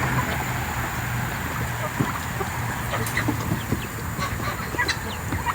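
Domestic poultry clucking and calling in short, scattered notes.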